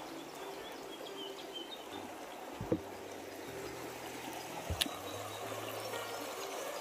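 Shallow, rocky forest river rushing steadily over stones, with two knocks about a third and two-thirds of the way in.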